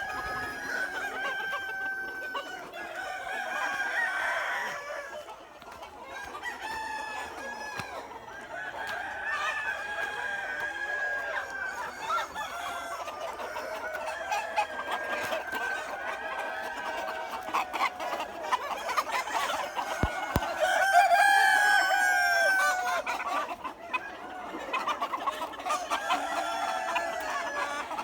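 A flock of chickens clucking continuously, with roosters crowing over them in long, drawn-out calls. The calls overlap and grow loudest about three-quarters of the way through.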